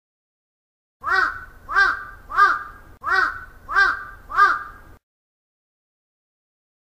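An animal call repeated six times, in two sets of three, starting about a second in; each call rises and falls in pitch.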